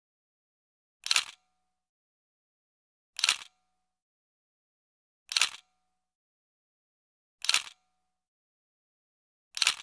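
Five short, sharp clicks about two seconds apart, each with a brief ring, separated by dead silence: an evenly timed, edited sound effect.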